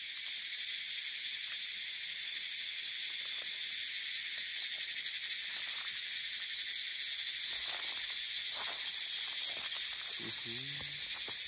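Insects in a steady, high-pitched buzzing chorus with a fast, even pulse.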